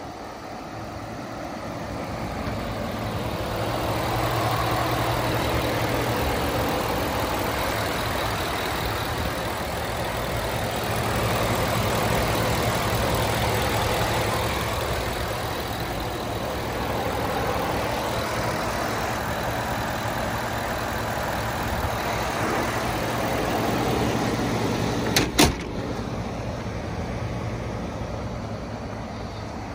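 Ford F-150 pickup engine idling steadily, louder in the first few seconds as it is approached with the hood up. About 25 seconds in come two sharp bangs close together, the hood being shut.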